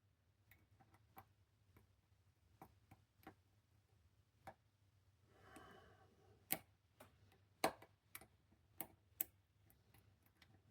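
Faint, irregular crunchy clicks of a short hook pick working the pins of a Master Lock 410 lockout padlock under tension, with a brief soft scrape a little past halfway.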